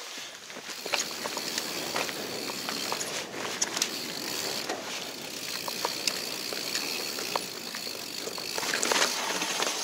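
Mountain bike rolling fast down a dirt singletrack: steady tyre noise on the dirt, with many small clicks and knocks from the bike over roots and bumps.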